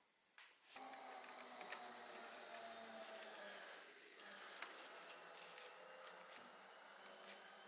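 Snap-off utility knife slicing through paper along the edge of a wooden frame: one long, quiet continuous cut with small ticks, starting about a second in.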